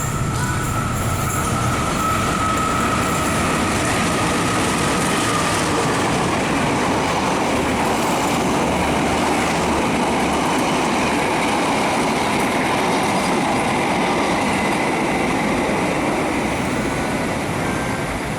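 A passing train, heard close by: a steady, loud run of wheels on rails. A high thin tone glides slowly downward over the first few seconds.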